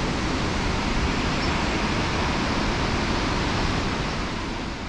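Steady rushing roar of a large waterfall, a dense, even noise that begins to fade out near the end.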